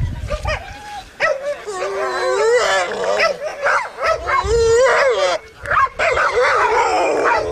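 Several dogs barking, yelping and whining over one another, with long wavering whines among the barks.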